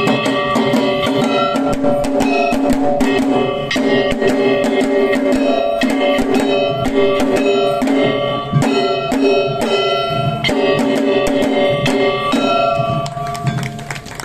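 Kagawa-style shishimai lion-dance music: drums struck in a quick, dense rhythm over sustained ringing tones, with the music ending near the end.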